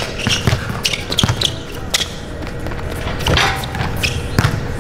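Basketball dribbled on a hard outdoor court: a handful of irregularly spaced bounces, with music in the background.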